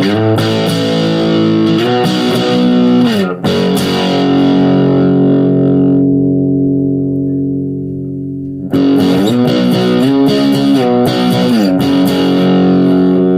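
Electric guitar played through a SubZero SNOWSTORM distortion pedal in normal mode, with tone, distortion and level set to 12 o'clock: distorted chords, one left ringing and fading for about five seconds midway, then more chords that stop abruptly near the end.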